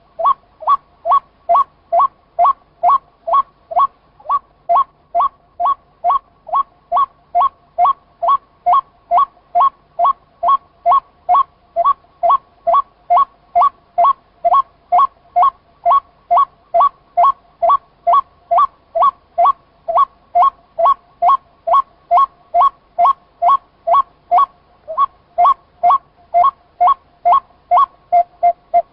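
White-breasted waterhen (chim cuốc) calling: a short pitched note repeated in a steady, monotonous series, about two and a half notes a second.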